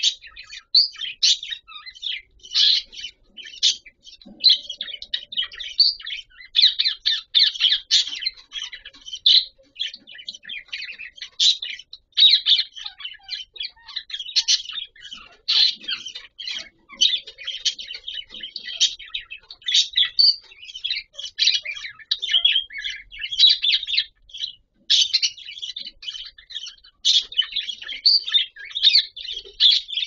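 Budgerigars singing: a rapid, continuous chatter of chirps and warbles with only brief pauses.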